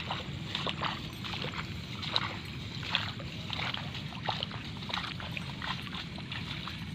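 Footsteps sloshing through a wet rice paddy, an irregular run of short splashing steps, about two a second, over a steady low rumble.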